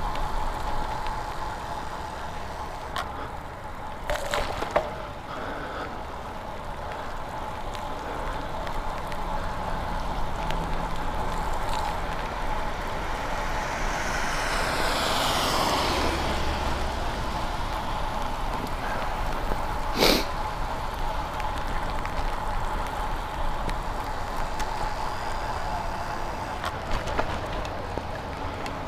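Riding a bicycle on a wet road in the rain: a steady hiss of wet tyres and rain. About halfway through, a car passes on the wet road with a rising and falling swish. There is a sharp knock about two-thirds of the way in.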